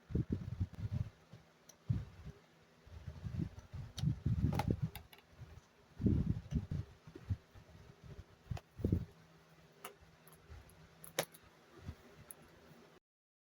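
Hands working on the parts of a Lasko stand fan: irregular knocks, rubbing and handling of plastic and metal pieces, with a few sharp clicks. The sound cuts out abruptly near the end.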